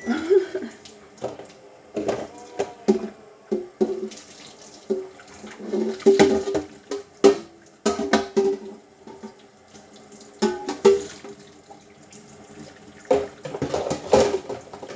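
Water running from a kitchen tap into the sink during hand dishwashing, with frequent clinks and knocks of a metal pot and dishes being scrubbed and handled.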